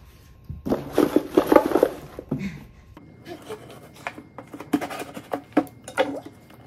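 A burst of wordless voice sound, then a knife scratching and clicking through the packing tape on a cardboard box in a quick run of short, sharp strokes.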